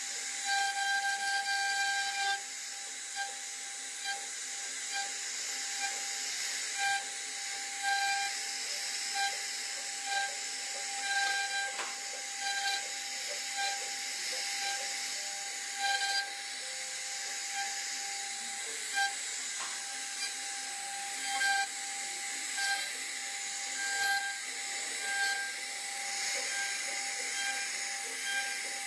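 CNC wood-carving router running steadily: a high, even spindle whine over a hiss, with short louder swells every second or two.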